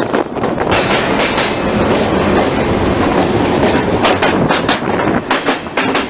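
Passenger train running along the track, its carriage wheels clacking over rail joints in quick clusters about a second in and again over the last two seconds, above a steady rolling rumble.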